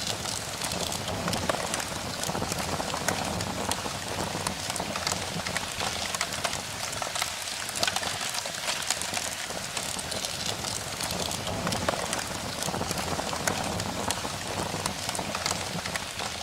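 Rain falling steadily, heard as an even hiss with many short sharp ticks of individual drops.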